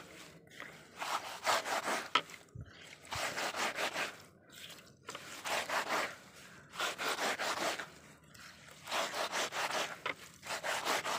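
Wet padathali leaves and vine stems rubbed and crushed by hand against a rough stone slab, a rasping scrubbing in repeated strokes, one burst every second or two with short pauses between. The leaf mash is already turning slimy as it is ground.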